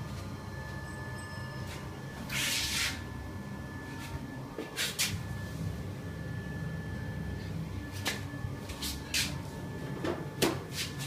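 Inline ducted exhaust fan running with a steady low hum and a faint high steady tone. A brief rushing noise comes about two seconds in, and several sharp clicks and knocks follow in the second half.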